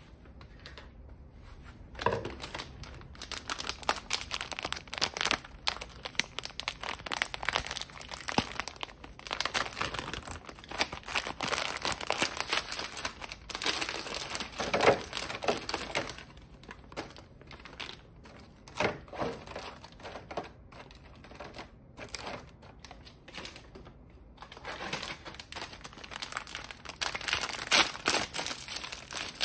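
Plastic snack packets and gold-foil-wrapped chocolates crinkling as they are handled and emptied out of their bag, in dense crackling bursts that start about two seconds in and ease off for a while past the middle before picking up again.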